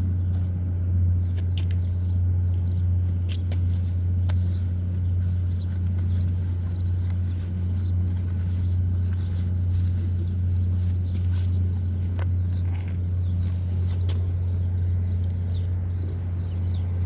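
Repaired crusher gearbox and its belt-pulley drive running steadily, a constant low hum with light scattered ticks; a test run after the oil seal and pulley were replaced.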